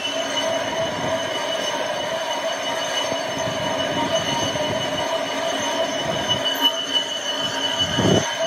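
Steady, high-pitched machine whine of several held tones over a rushing background, with a brief low thump near the end.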